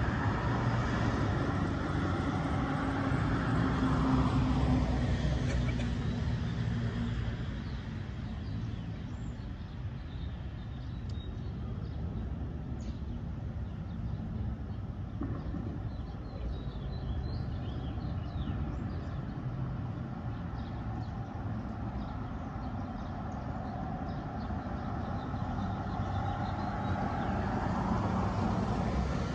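Street traffic passing through an intersection. A minivan drives by in the first few seconds, the sound of it falling away, then there is a quieter stretch of low traffic rumble, and a pickup truck comes up loudening near the end.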